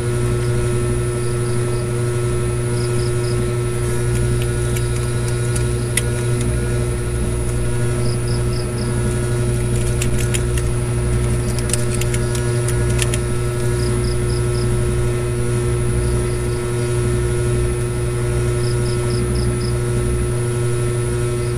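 Steady low machine hum with a constant tone above it, broken by a few sharp clicks about halfway through and a faint triple chirp that repeats about every five seconds.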